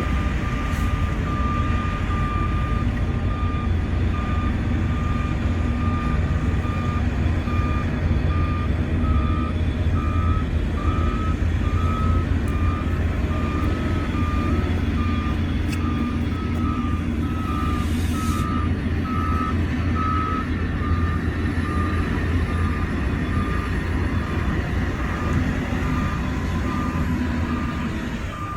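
Heavy earthmoving machine's reversing alarm beeping in a steady, even series over the low running of a diesel engine. For a stretch in the middle, a second alarm at a slightly higher pitch beeps alongside it.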